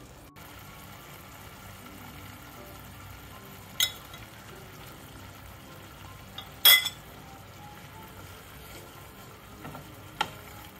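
A mushroom and bell-pepper sauce sizzling low and steady in a frying pan as it is stirred with a wooden spoon. The spoon knocks sharply against the pan three times, loudest in the middle.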